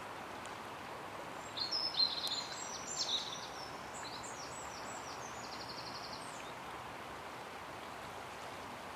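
Steady rush of a shallow river flowing over rippled water. A small songbird sings a varied phrase of high notes from about a second and a half in, ending in a quick trill about six seconds in.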